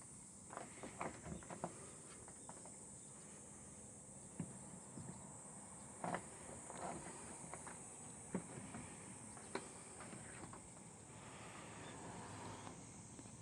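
Faint scattered taps and soft knocks over a steady high-pitched hiss.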